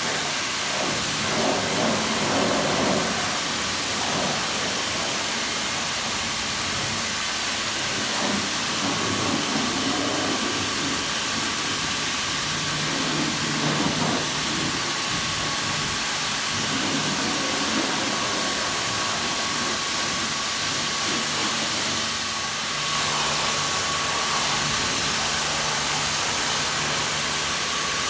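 Pressure washer running: a steady hiss of the high-pressure water jet spraying the car, over the steady hum of the washer's motor and pump, the spray's sound shifting as the jet moves over the bodywork.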